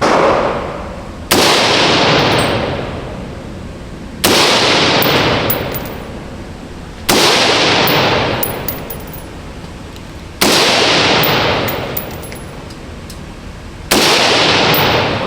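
Six single gunshots from a red-dot-sighted gun fired slowly, one to three and a half seconds apart, each with a long echoing decay.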